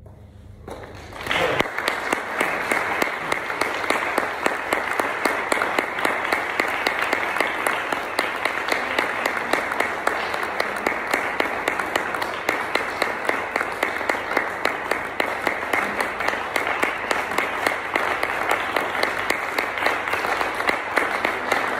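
The last chord of a grand piano fades during the first second, then an audience bursts into applause about a second in, and the clapping keeps on steadily.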